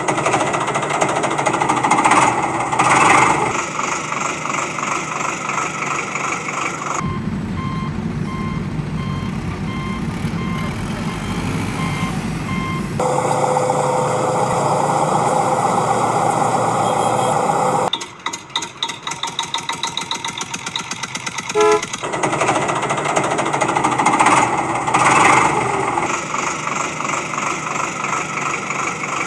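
Heavy vehicle engine sounds with horn blasts, and a run of regular reversing beeps, about one a second, over a low engine rumble in the middle.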